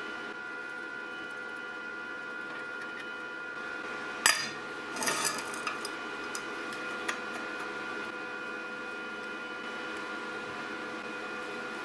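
Steel bolt and hex nuts clicking against a square steel tube as they are handled and fitted: one sharp click about four seconds in, a short cluster of clinks just after, then a few lighter ticks. A steady background hum runs underneath.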